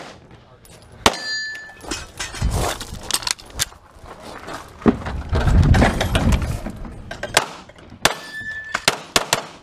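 Handgun shots fired during a timed defensive-pistol stage: single shots spread out, then a fast string of four near the end. A short ringing tone follows two of the shots, and between them there is low scuffing and rumbling from the shooter moving.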